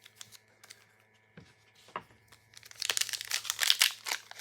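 A few faint clicks, then from about two and a half seconds in, a Pokémon booster pack's foil wrapper crinkling and tearing as it is opened.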